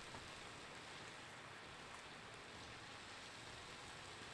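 Faint, steady sizzle of steak frying on a Blackstone flat-top griddle, with a few tiny crackles.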